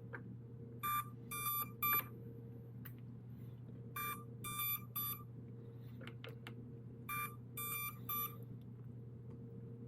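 Hubson Zino Mini Pro drone beeping in sets of three short high beeps, a set about every three seconds, over a steady low hum. It is the warning beep that starts after about 12 minutes of USB file transfer, which the owner suspects is an overheating warning.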